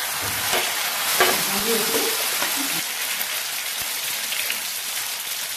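Shredded potato and egg batter sizzling steadily in hot mustard oil in a frying pan, with a spatula scraping the pan now and then as the batter is spread.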